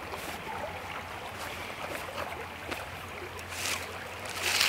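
Small creek running steadily, with two brief rustles near the end, the louder one last, as a shooting bag and muzzleloading rifle are handled during reloading.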